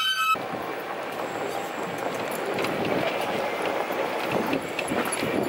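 A golf cart riding along: a steady rushing rattle of the moving cart and passing air, with many small ticks. Steady electronic tones stop abruptly a moment in.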